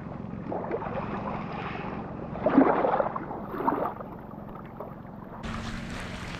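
Small sea waves washing onto a sandy, rocky shore, surging louder twice, with wind noise on the microphone.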